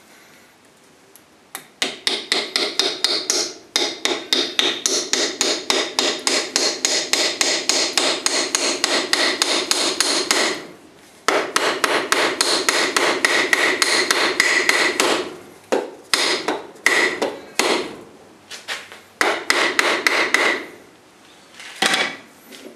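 Rapid hand-hammer blows, about five a second, on steel clamped in a bench vise, each with a short metallic ring. After a brief pause about ten seconds in the blows resume, then become slower and more spaced toward the end.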